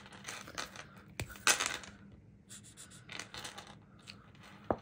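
Colour pens being handled and drawn on paper: a few light clicks and short scratchy strokes.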